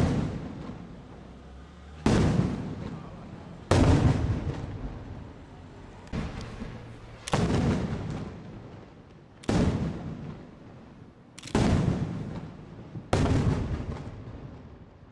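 Aerial firework shells bursting overhead, about eight loud reports roughly two seconds apart, each trailing off in a long rolling echo.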